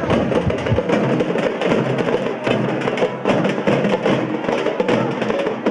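Drums beaten in a fast, dense rhythm of sharp, crisp strikes, festival drumming for a Muharram procession.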